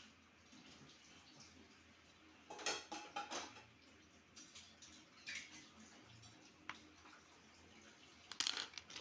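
Small hard metal objects clinking and tapping against each other in a few short clusters, the loudest near the end.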